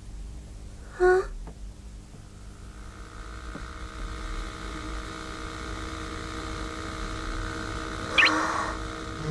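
Cartoon soundtrack: a short vocal exclamation about a second in, then a quiet drone of held tones that slowly grows louder, with a brief rising chirp near the end.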